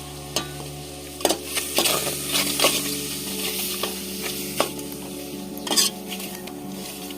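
Chicken pieces being stirred in a pan of hot oil: a spoon or spatula knocks and scrapes against the metal many times while the oil sizzles. The loudest scrapes come about a second in and again near six seconds.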